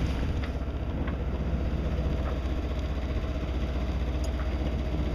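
A sailboat's engine running steadily while under way through choppy water, with a low rumble under a haze of wind and water noise.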